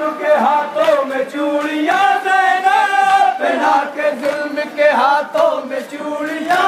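Men's voices chanting a Muharram lament in a long-held, melodic line, with a loud lead voice on a microphone over the procession crowd.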